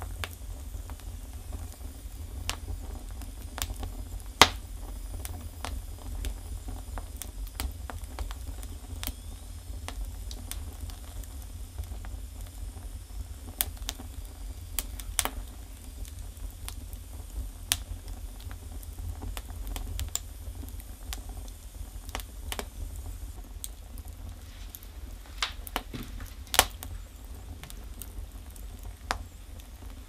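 Firewood burning in a Russian stove: irregular sharp crackles and pops over a steady low rumble, with two louder pops, about four seconds in and a few seconds before the end.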